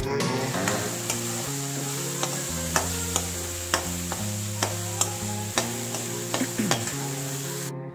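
A metal spatula scrapes and clicks against a kadai, stirring sprouted beans that sizzle steadily in hot oil. Instrumental background music plays underneath.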